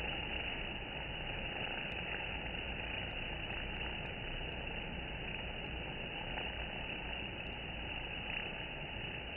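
Steady, dense buzzing of many honey bees crowding and flying at a hive entrance, with a few faint ticks.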